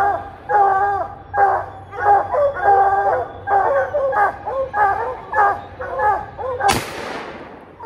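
Hounds baying over and over at a bear treed above them, several calls a second. About three-quarters of the way through, a single gunshot cracks out and its echo fades away.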